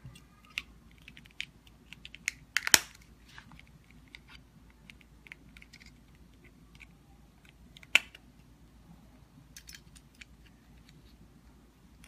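Small plastic clicks and ticks as a CR2032 coin cell is fitted into a key-fob remote control and the remote's plastic case is handled, with two sharper snaps, one about three seconds in and one about eight seconds in.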